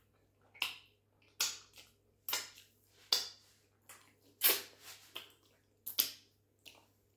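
Close-up wet sucking and lip smacks as sauce-covered fingers are licked clean, a quick smack roughly every half second. The loudest come about four and a half seconds in and at six seconds.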